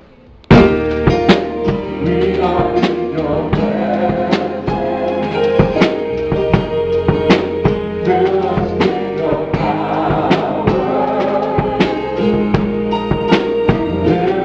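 Live church worship band playing: a man singing over keyboard, guitar and drums, with steady drum hits. It starts suddenly about half a second in.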